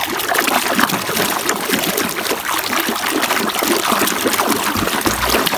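Water sloshing and splashing in a basin as a hand swishes a muddy plastic toy motorcycle back and forth to wash it: a dense, continuous run of small splashes.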